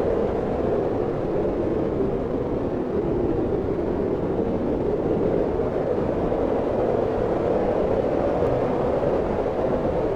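Wind blowing steadily: an even, low rushing noise.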